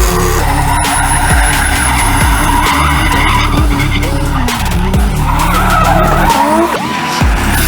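Drift cars' engines revving up and down hard, with tyres skidding and squealing as they slide.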